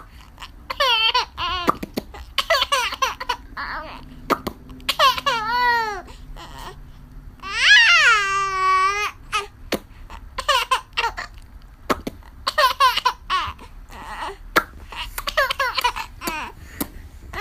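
Seven-month-old baby laughing in repeated high-pitched, squealing bursts, one drawn out about eight seconds in, between sharp mouth pops that set off the laughter.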